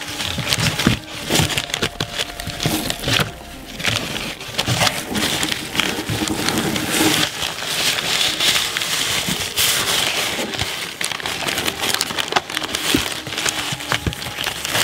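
Shredded-paper packing filler and newspaper rustling and crinkling as hands dig through a cardboard box, with many small crackles and clicks.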